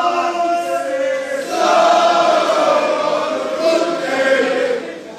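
A crowd of football supporters singing a chant together, many voices in unison, with a short dip in loudness near the end.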